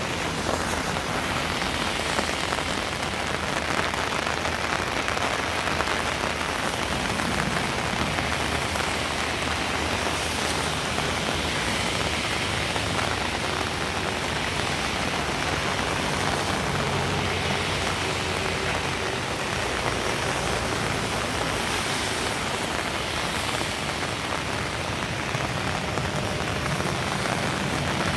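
Steady rain falling, an even hiss that holds at the same level throughout.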